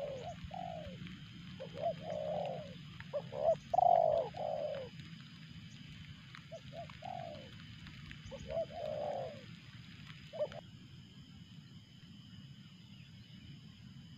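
Dove cooing in repeated short phrases of a few rounded coos each, about five phrases in the first ten seconds, then falling silent.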